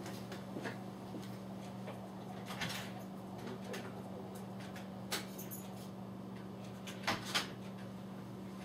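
A door being opened and shut, with a few scattered knocks and clicks and a pair of louder knocks about seven seconds in, over a steady low hum.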